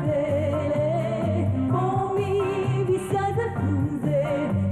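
A light pop song: a woman singing the chorus in long notes with vibrato over a band accompaniment, with a bass line stepping from note to note underneath.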